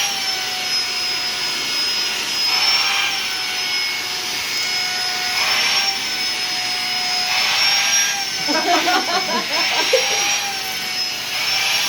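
Vacuum cleaner running steadily with a high motor whine that wavers slightly in pitch. A rush of airflow swells every two to three seconds as the nozzle moves.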